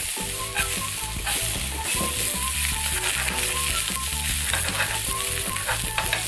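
Sliced onion sizzling steadily in a hot frying pan while being stirred with a silicone spatula.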